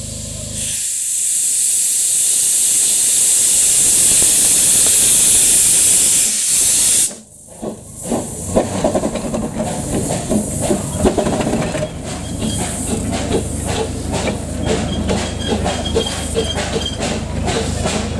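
Narrow-gauge steam locomotive letting off a loud, steady hiss of steam that swells up about a second in and cuts off sharply about seven seconds in. It is followed by the train running, with many irregular knocks and rattles and faint squeals.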